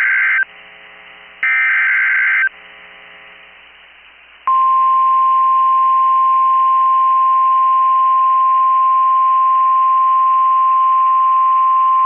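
NOAA Weather Radio Emergency Alert System alert: the end of one SAME header data burst, then a second full burst about a second long, each a loud digital buzz. About four and a half seconds in, the steady 1050 Hz warning alarm tone starts, the signal that a warning message is about to be read.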